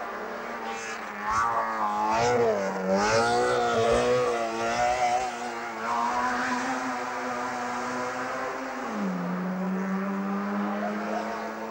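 Racing car engines on a hill-climb course, heard from a distance, revving up and down as the cars brake and accelerate through hairpin bends. The pitch rises and falls several times in the first half, then holds steady with a drop in pitch about three-quarters of the way through.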